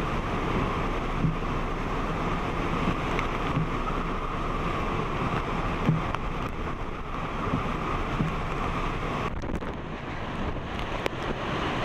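Hurricane-force wind of Hurricane Matthew blowing through palm trees and buffeting the microphone, a steady rush with small gusts. About nine seconds in it turns a little quieter, with scattered sharp ticks.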